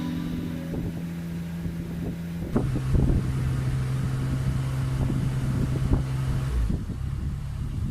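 Backhoe's diesel engine running, its steady note stepping down about two and a half seconds in, with clunks and knocks from the machine working.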